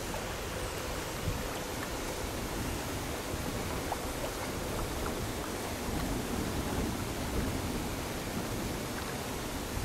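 Steady rushing noise of wind and small waves on choppy open water.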